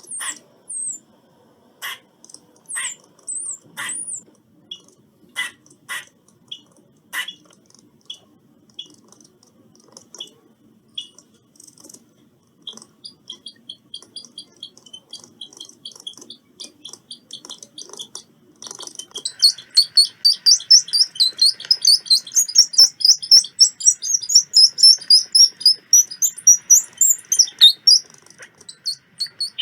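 Squirrel calling: a string of sharp, separate high chirps, then a fast run of short high notes that turns loud about two-thirds of the way through into a rapid chattering trill, ending shortly before the end.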